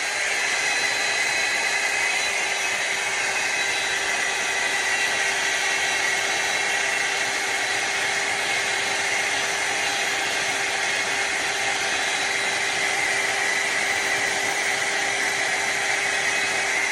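Hot air styler (rotating blow-dryer brush) running steadily: an even rush of blown air with a steady motor whine. It cuts off suddenly at the end.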